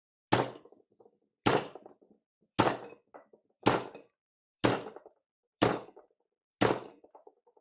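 Sledgehammer striking a threaded metal part seven times, about once a second, each blow sharp with a short ring after it. The blows are meant to straighten the part.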